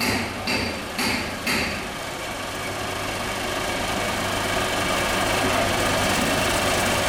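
Metal striking metal about twice a second with a short ring, four strikes in the first two seconds. Then a steady running machine hum with a low drone takes over and grows slightly louder.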